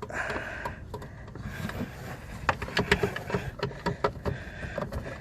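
Irregular small plastic clicks and knocks from a car's turn signal bulb and socket being handled by hand.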